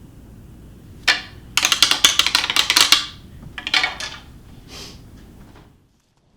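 A matched pair of whitetail shed antlers knocked together once, then rattled against each other in a quick clattering run of clicks, followed by two shorter rattles.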